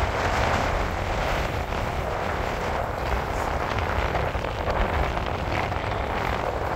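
Wind rushing over the microphone in a steady, even hiss with a low rumble underneath.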